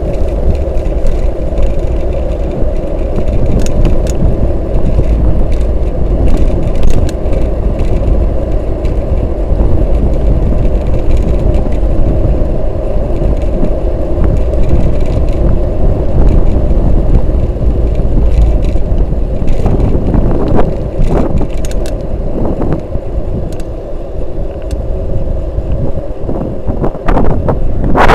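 Continuous wind buffeting and tyre rumble on a bicycle-mounted camera's microphone while riding on an asphalt road, with scattered small clicks and rattles. The noise gets louder and harsher near the end.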